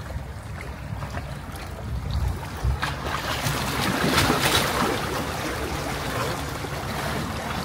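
A boat's engine runs with a steady low rumble while water rushes along the hull and wind hits the microphone. The rush of water swells to a peak near the middle, then settles.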